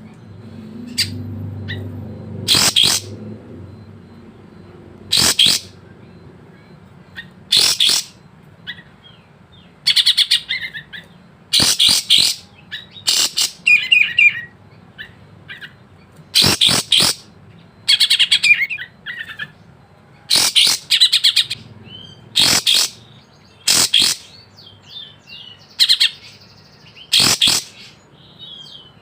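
Sooty-headed bulbul (kapas tembak) singing: loud, short bursts of song about every two seconds, with softer twittering between them.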